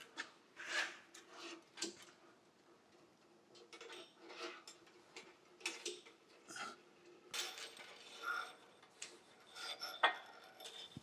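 Steel wire rope being fed and pulled over a pulley and through a steel press frame by hand: irregular scraping and light metallic clinks.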